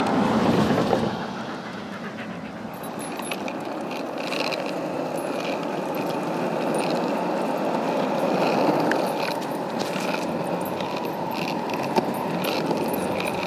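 Skateboard wheels rolling over asphalt while a dog tows the board, a steady rumble, with one sharp click near the end.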